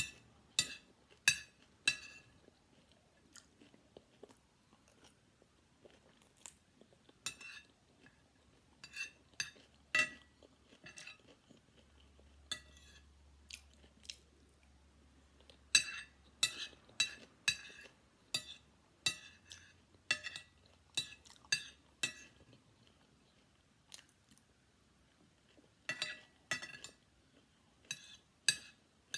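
Metal spoon clinking and scraping against a ceramic plate while scooping up fried rice, with close-up chewing between. The sharp clinks come in clusters: at the start, around the middle and near the end.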